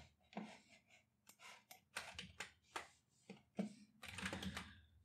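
Faint, scattered keystrokes and clicks on a computer keyboard, a few at a time, with a denser run about four seconds in.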